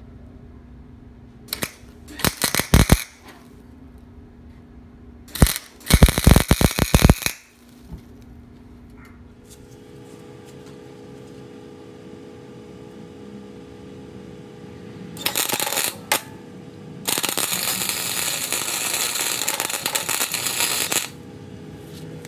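Flux-core wire-feed welder arc crackling as a mild steel bung is welded onto a steel oil pan: four bursts of welding, two short ones in the first half and two more later, the last and longest running about four seconds.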